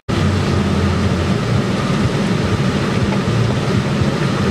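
Car wash water spray hitting the car's windscreen and body, heard from inside the car: a loud, steady rush that starts abruptly and keeps on without a break.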